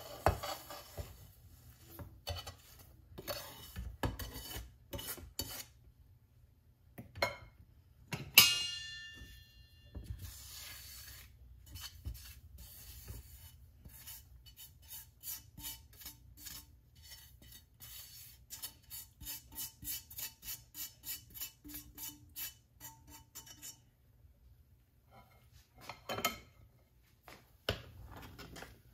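Metal spoon scraping roasted semolina out of a stainless steel frying pan into a steel pot of milk: repeated rasping scrapes, with one loud ringing clang of metal on metal about eight seconds in. A quick run of regular scrapes follows, about two a second, and near the end the spoon stirs the semolina into the milk.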